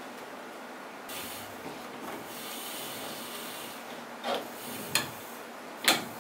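Lace curtain fabric rustling as it is handled and hung, with a few sharp clicks near the end as it is fastened to the curtain rod.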